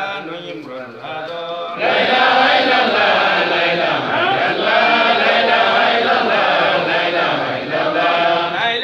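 Islamic devotional chanting: a single man's voice chants, then about two seconds in a group of men's voices joins in a loud chant together.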